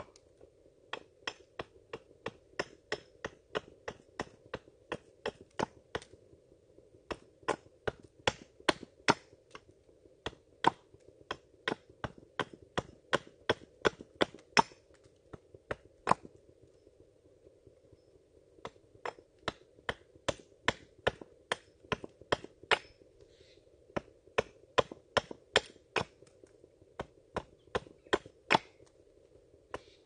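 Hand hammer tapping on wood in quick, separate blows, about two or three a second, with a pause of a few seconds midway.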